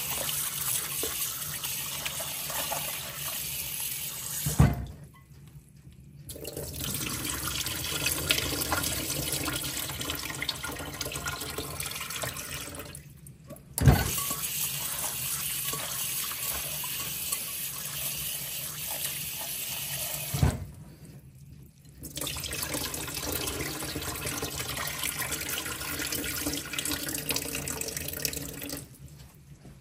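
Kitchen tap running into a glass bowl in a stainless-steel sink as shredded cabbage is rinsed by hand, then water pouring off as the bowl is drained. The water stops briefly three times, each time next to a single sharp knock.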